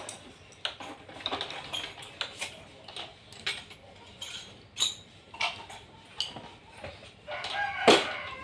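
Chickens clucking in short calls, with a rooster crowing loudly near the end.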